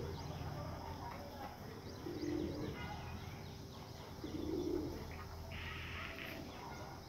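Birds calling: a low call, about half a second long, comes twice about two seconds apart, over many short high chirps from small birds. A brief higher hiss lasts about a second near the end.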